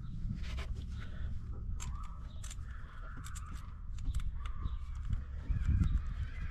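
Irregular light clicks and knocks of a coil pack and its bolts being fitted by hand on an engine, over a low steady rumble.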